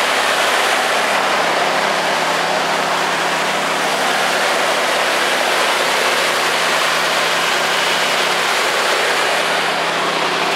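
Ford F-150 engine running steadily at fast idle after a cold start, still warming up before it drops to normal idle.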